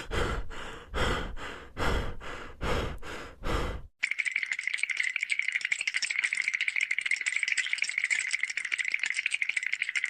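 Cartoon sound effects: five short noisy shakes about a second apart, then from about four seconds in a fast, steady rattle.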